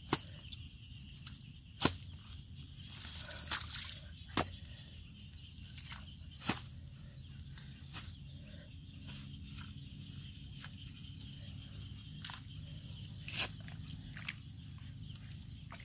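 A hoe chopping into a wet mud bank: about eight sharp, irregular strikes a second or more apart, over a steady low background noise.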